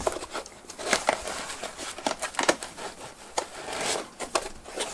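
Packing handling noise: rustling and crinkling with many small scattered knocks and clicks as a stepper motor is worked out of its foam insert in a cardboard box.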